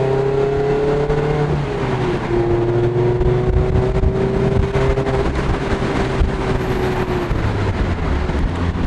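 Mazda MX-5 Miata ND2's four-cylinder engine through an aftermarket axle-back exhaust, heard from the open cockpit under way. The note climbs, drops as it shifts up a gear about a second and a half in, then holds a near-steady pitch and eases off near the end, over wind noise.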